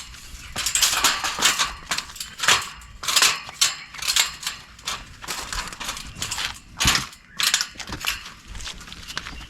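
Sheet metal and parts of an old central air conditioner's outdoor unit being pulled apart and handled, making irregular clanks, rattles and scrapes.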